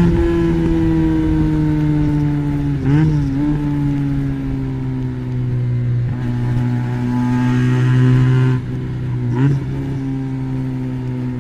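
Benelli BN302's 300 cc parallel-twin engine running through an Arrow exhaust with its dB killer fitted. Its note slides slowly down, dips and recovers briefly about three seconds in, climbs gently, then drops sharply about eight and a half seconds in, followed by another quick dip and rise.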